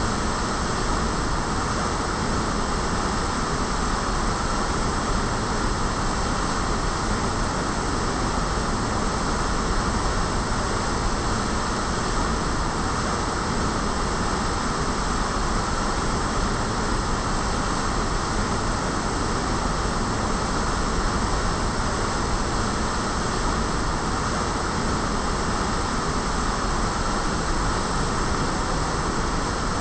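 Heavy streams of water pouring from a concrete fountain's square outlets and splashing into the pool below, a steady, unbroken rush.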